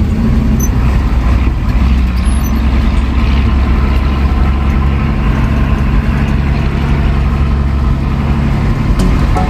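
Old Scania-Vabis truck's diesel engine running steadily while driving, a low even drone.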